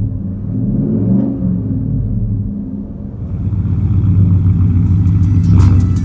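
2015 Ford F-150's 5.0 V8 running through a Tunnel Ram true dual performance exhaust, revving around 2,000 rpm. It gets louder and holds a steadier rev from about three seconds in.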